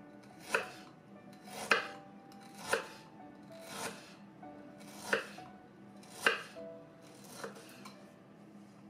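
Kitchen knife slicing fresh ginger root into rounds on a wooden cutting board: about seven sharp knocks of the blade striking the board, roughly one a second.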